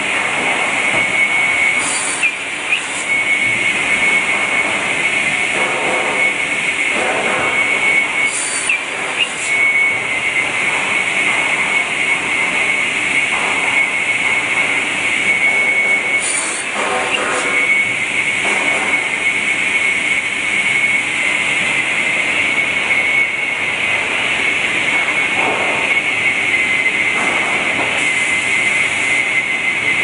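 TS550 automated timber sawing machine running inside its enclosure: a steady high whine over continuous machine noise, broken three times by short hisses with a brief wobble in the whine's pitch.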